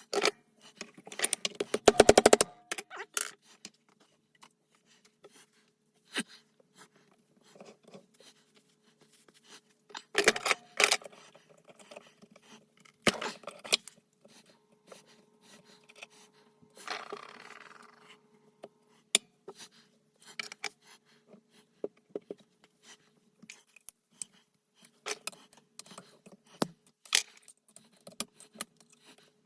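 Metal parts and hand tools clinking, knocking and scraping as a transfer case is taken apart, with a quick rattling run of clinks near the start, a few louder knocks later, and a short scrape in the middle.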